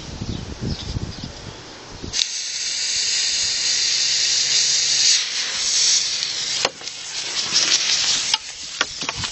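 Small smoke-bomb fireworks burning: a loud, steady high hiss of a lit fuse and smoke ball spewing, starting abruptly about two seconds in, breaking off briefly twice, with a few sharp crackles near the end. Before the hiss there is a low, uneven rumble.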